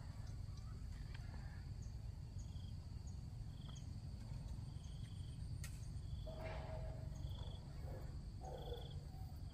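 Outdoor insect sounds: a steady high-pitched drone with a short chirp repeating roughly once a second, over a constant low rumble.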